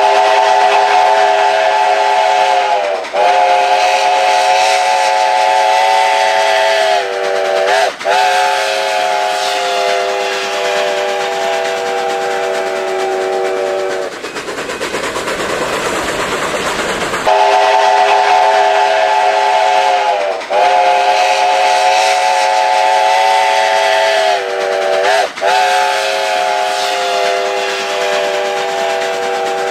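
Steam locomotive's chime whistle sounding a chord of several notes in long, near-continuous blasts, each cut short by a brief dip in pitch as it closes. About halfway through the whistle stops for roughly three seconds, leaving only hissing steam.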